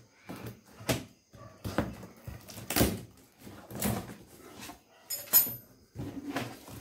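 Plastic shrink wrap being cut with scissors and pulled off a cardboard box: irregular crinkling and rustling with knocks of the cardboard, loudest about three seconds in, and a sharp crackle of the plastic a little past five seconds.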